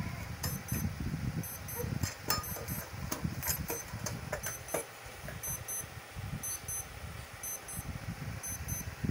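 Electronic device beeping twice about once a second, short high-pitched double beeps, over a low rumble. A few sharp knocks and clicks come about two to four seconds in.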